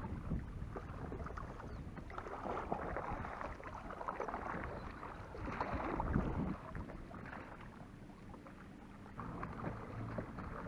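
Kayak paddle strokes: the blade dipping and pulling through the water with uneven splashing, the loudest stroke about six seconds in. Low wind rumble on the microphone underneath.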